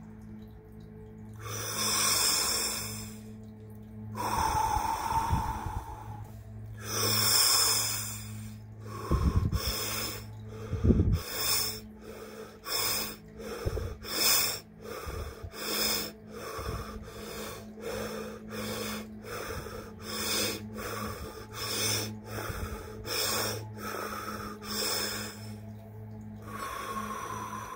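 A man doing Wim Hof Method breathing through the mouth: three long, deep breaths, then from about nine seconds in a quick, steady run of forceful breaths, about one a second, which eases off near the end.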